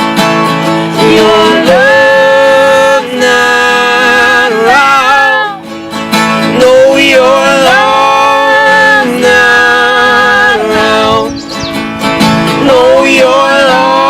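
Live acoustic folk band playing, with acoustic guitar and long held, wavering melody notes that slide into pitch.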